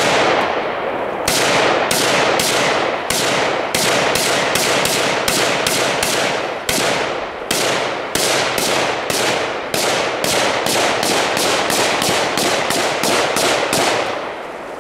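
WASR-10 AK-pattern rifle in 7.62×39 firing a long string of about thirty shots. After a single opening shot and a short pause the shots come two or three a second, with a couple of brief breaks. Each crack trails off in a short echo.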